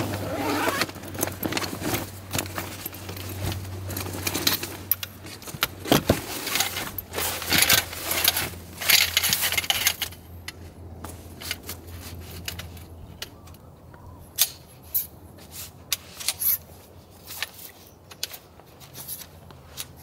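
Handling of camping gear: a canvas bag rustling as it is opened, then aluminium tent poles clinking and clicking against each other in sharp separate knocks through the second half.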